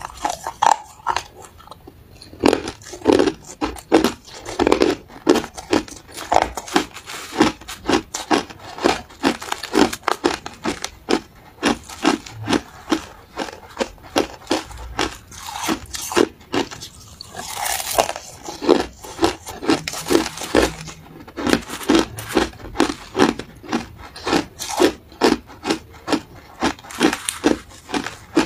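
Crushed ice being crunched between the teeth, close to the microphone: a steady run of sharp crunches, about two a second.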